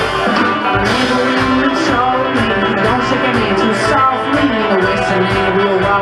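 Live string band playing an instrumental passage: plucked acoustic guitar over upright bass, with a lead melody sliding up and down.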